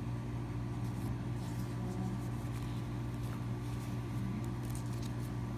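A steady low mechanical hum, with faint light clicks and rustles from a CD case and its packaging being handled, in two spells.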